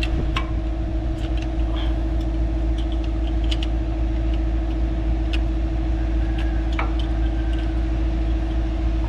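A few light metallic clicks and taps as a new brake pad is tried into the caliper bracket, over a steady low machine hum.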